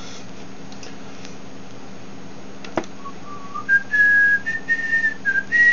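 A man whistling a slow tune through pursed lips. It starts about three seconds in with a short click, then a string of held notes that mostly step upward in pitch.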